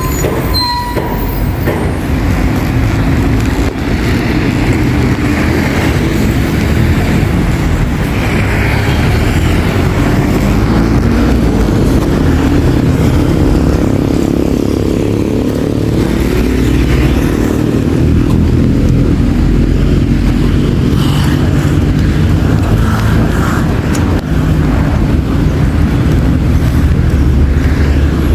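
City road traffic: a continuous low engine rumble of cars and other motor vehicles, with single vehicles swelling louder now and then as they pass.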